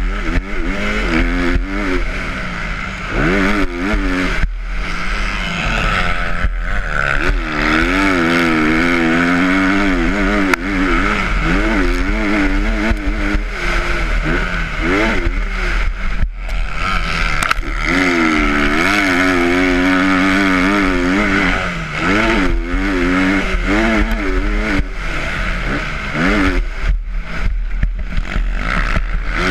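A motocross dirt bike's engine racing around a track, heard from the rider's own bike, its revs rising and falling again and again as the rider shifts and works the throttle through turns, with several brief drops where the throttle is shut off. A steady rush of wind and track noise runs underneath.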